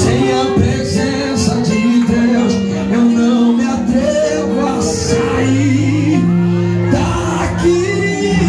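Live gospel worship music with long held keyboard chords that change about five seconds in, and a voice singing over them through the sound system.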